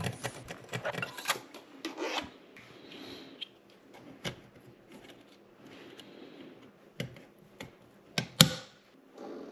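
Brush scrubbing out a dishwasher's air gap to clear food debris lodged in it. Rapid scratchy strokes for about two seconds, then fainter rubbing and scattered clicks, with one sharp knock near the end.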